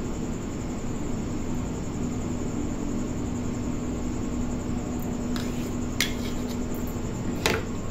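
A steady low hum, with a few light clicks of a table knife from a little past halfway, and two sharper clinks near the end as the knife is put down.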